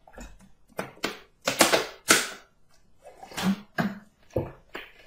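Gulping swallows from drinking out of a plastic bottle, a quick series of about six in the first two seconds. A few more sharp clicks and knocks follow near the end, from the bottle being handled.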